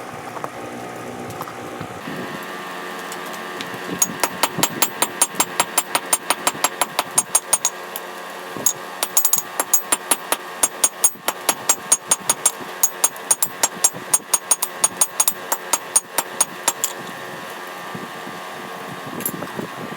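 Rapid hand-hammer blows on hot steel over an anvil, about four or five ringing strikes a second, in two long runs with a short pause between, while the file is forged into a flint striker. A steady mechanical hum runs underneath.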